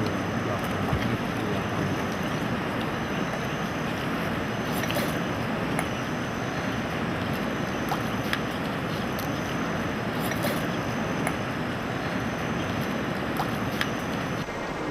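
Steady rushing of river rapids, with a few faint ticks scattered through.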